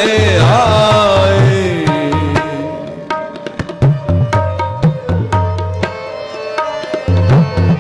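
Sikh kirtan music. A sung phrase glides and trails off in the first second or two. Then harmonium holds steady tones under a run of tabla strokes.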